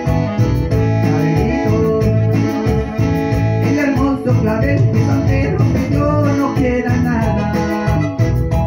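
Live music from an acoustic-electric guitar and an electronic keyboard, with a melody line over a steady beat and bass, in an instrumental passage between sung verses.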